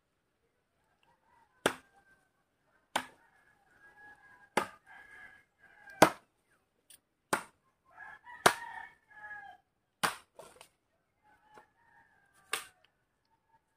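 Machete chopping into a thin standing tree trunk: about eight sharp strokes, one every second or so. Chickens call between the strokes, including a rooster crowing.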